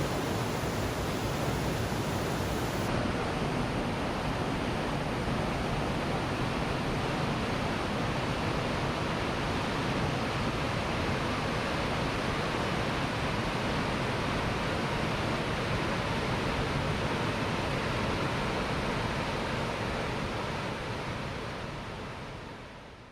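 Steady rush of a waterfall, an even wash of falling water with no breaks, fading out over the last few seconds.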